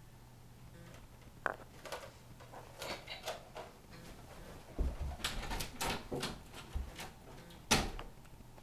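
Scattered soft knocks, thuds and rustling of people moving about a room, with a louder thud about five seconds in and another near the end.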